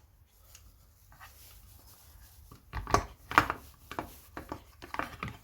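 Light clicks and knocks of a chainsaw part being handled and fitted by hand, starting about halfway in after a quiet stretch.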